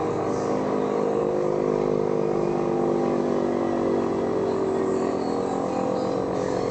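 Original World War II air raid siren sounding as it winds down, a drone of several steady tones.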